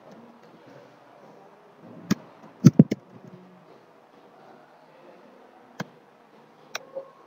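Computer keyboard keystrokes: a few separate key clacks, with a tight cluster of the loudest strikes a little before halfway and a couple more near the end, over faint room noise.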